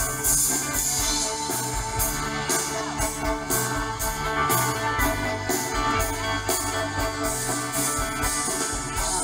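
Live band music played loud through a large outdoor PA, heard from within the crowd: guitar and drums keeping a steady beat of about two strokes a second, with no singing.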